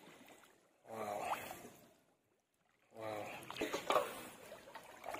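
Water splashing as a large fish is handled by someone wading in a pond, with a few sharp slaps near the end as it goes into a metal basin. A man's voice exclaims twice, drawn out.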